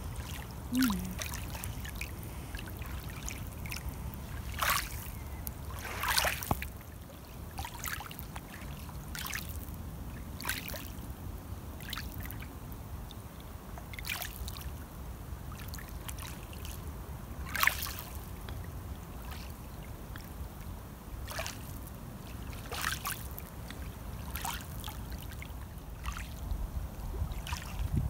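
Lake water lapping and splashing lightly in short bursts every second or two, over a steady rumble of wind on the microphone. Just under a second in, a person gives a short falling hum.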